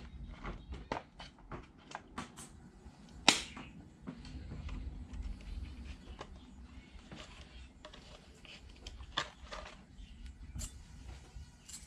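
Irregular clicks and knocks of objects being handled and set down, with one sharp click a little over three seconds in and a faint steady low hum behind.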